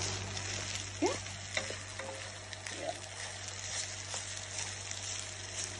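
Balaleet (sweet vermicelli with scrambled egg in ghee) sizzling softly in a pot over low heat, with a wooden spoon stirring and scraping through the strands. There is a short rising squeak about a second in.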